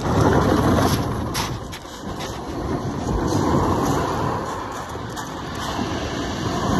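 Surf breaking and washing over a shingle beach, a steady rush that swells, eases about two seconds in and builds again. A few short crunches of footsteps on the pebbles.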